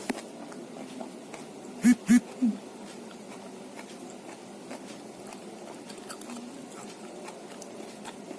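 Close-up eating sounds: soft chewing and small mouth clicks over a steady background hum. About two seconds in, three short, loud bursts of a person's voice break in.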